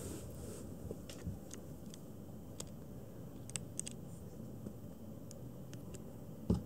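Faint scattered clicks and taps of a kitten's paws and claws moving on the rim of a plastic litter box, over steady low room noise, with one louder thump near the end.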